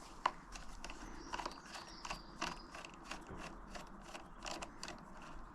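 Faint, irregular small clicks and scrapes of a screwdriver turning out the negative terminal screw of a motorcycle battery.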